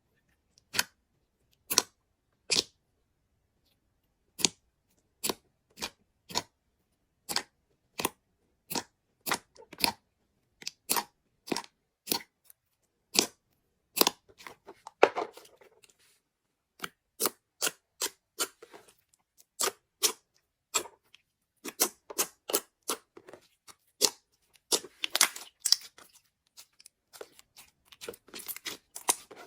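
Slime being pressed and stretched by hand, giving a string of sharp, irregular clicks and pops from trapped air, with brief crackly stretches about halfway through and near the end.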